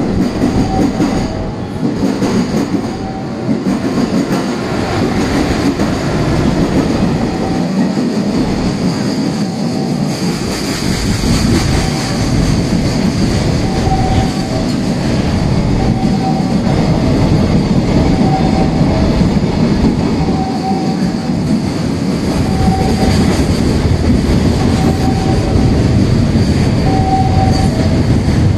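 Container freight train hauled by a JR Freight EF210-300 electric locomotive passing close by at speed: a loud, steady rumble of wheels on rail. A short higher tone recurs every second or two as the wagons go by.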